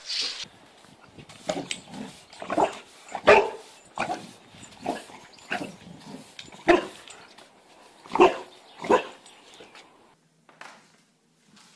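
Boxer dog barking at a broom: about ten short, single barks at uneven spacing, the loudest in the middle. It stops and falls quiet for the last couple of seconds.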